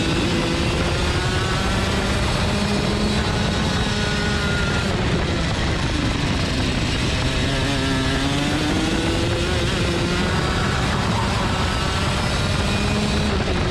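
Racing go-kart engine running at speed, heard from onboard. Its pitch sinks about halfway through as the kart slows, then climbs again as it accelerates, over a steady rushing noise.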